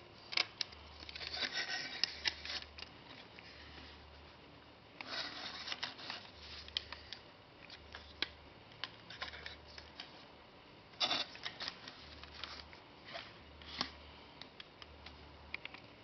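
Plastic Lego bricks clicking and rattling with rustling as the dock is handled, in three short bursts with scattered single clicks between.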